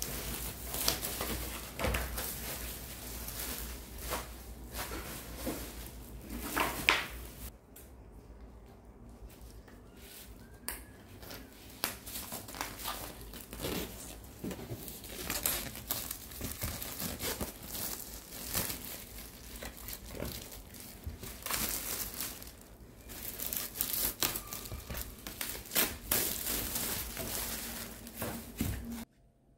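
Clear plastic shrink-wrap being torn off new stretched canvases and crumpled. It makes an irregular crinkling and crackling with sharp snaps, eases for a few seconds about a third of the way in, then picks up again and stops abruptly near the end.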